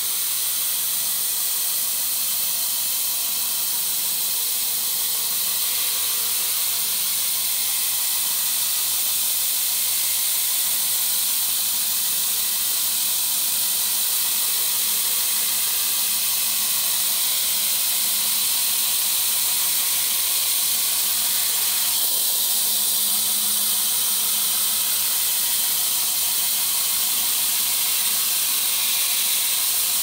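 A homemade sawmill attachment's saw cutting timber into feather edge boards as they feed through: a steady, loud high hiss of the blade in the wood, which grows a little fuller about two thirds of the way through.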